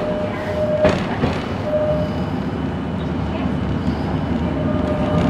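Restored mid-century electric streetcar running, heard from inside the car: a steady rumble of wheels on the rails, with a thin steady tone that comes and goes and a single sharp knock about a second in.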